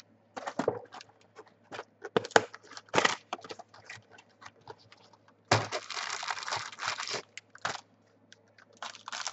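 Trading card packaging being torn open and crinkled by hand: a few short sharp crackles over the first three seconds, a longer stretch of crinkling a little past halfway, and more crinkling near the end.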